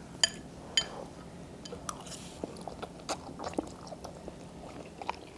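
People chewing instant black bean (jjajang) noodles, with scattered short wet clicks from mouths and utensils.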